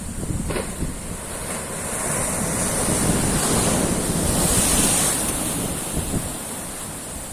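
Ocean surf: a wave's hiss builds about two seconds in, peaks around the middle, then washes back and fades, over a low rumble of wind on the microphone.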